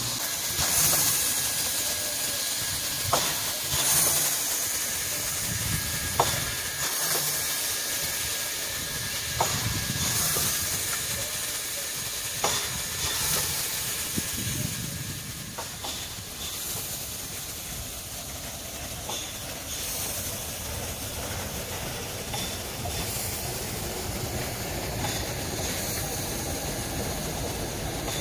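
Soviet L-class steam locomotive moving slowly, its steam exhaust hissing in a regular chuff about every three seconds, with a sharp knock from the running gear between the chuffs. After about sixteen seconds the chuffing fades into a quieter, steadier train rumble.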